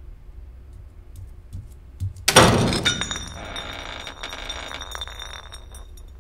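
A short knock, then a sudden loud crash of glass breaking about two and a half seconds in. It is followed by about three seconds of high ringing and clinking debris that fades out.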